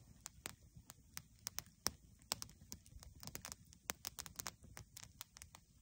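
Small campfire of sticks and twigs crackling, with faint, irregular sharp snaps and pops several times a second.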